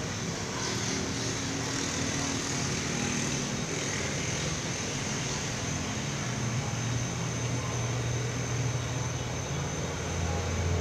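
A steady engine drone, a low hum that slowly shifts in pitch and grows a little louder near the end, over a constant hiss.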